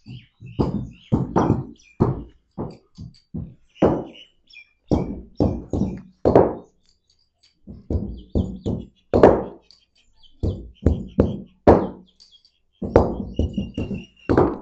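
Hand tamping of parrot-bomb cracker tubes: a wooden stick knocks again and again as it packs grey powder into the small cardboard shells on a concrete floor. The knocks come in quick, uneven runs of a few strokes with short pauses between.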